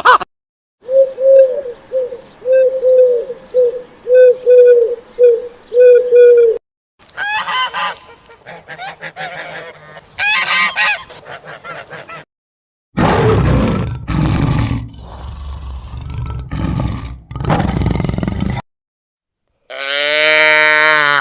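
A series of separate farm-animal clips. First comes a run of about nine short, evenly pitched calls over five seconds, typical of a goose. Other animal calls follow, then a stretch of loud, rough noisy sound and, near the end, one drawn-out pitched call.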